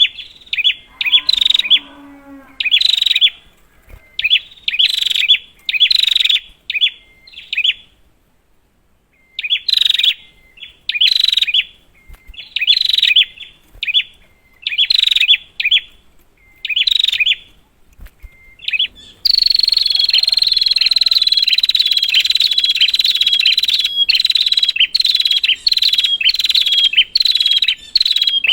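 Prinia (prenjak) calling: short, sharp, high chirping phrases repeated about once a second, with a brief pause about a third of the way in. About two-thirds in it cuts abruptly to a fast, continuous run of chirps over a steady high tone.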